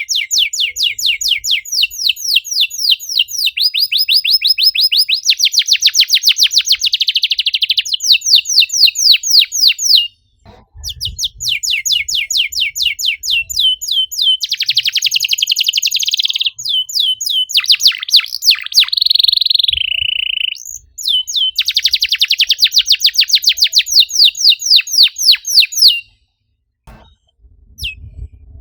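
Domestic canary singing in long phrases of fast, tightly packed high trills, the 'nembak rapat' style of a canary in full song. The singing breaks off briefly about ten seconds in and again near the end.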